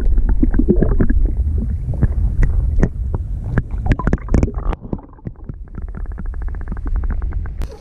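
Low wind rumble on the microphone in a small fishing boat, with irregular knocks and thumps of handling. About five seconds in, a fast, even run of clicks starts, about fourteen a second, and stops just before the end.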